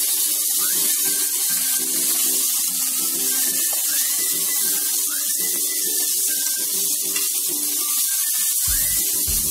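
Chicken steaks sizzling in hot oil in a frying pan, a steady hiss, with background music over it; a deep bass beat joins near the end.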